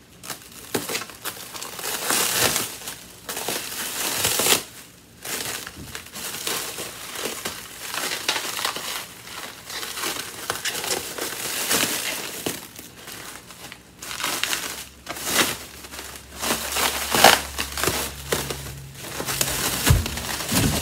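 Clear plastic packing wrap crinkling and rustling in uneven bursts as it is cut open and pulled apart by hand.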